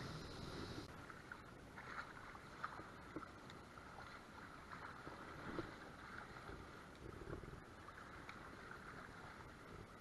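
Faint river water flowing and lapping, with a few soft clicks and taps scattered through it.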